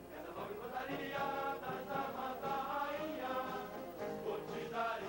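Background music: a choir singing held notes that change every half second or so.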